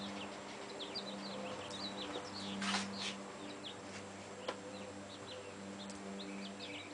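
Small birds chirping in quick short calls over a steady low hum, with a brief rushing noise about two and a half seconds in and a sharp click about four and a half seconds in.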